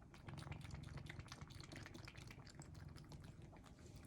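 Domestic cat, an American Shorthair, lapping water: a faint run of quick, soft wet clicks.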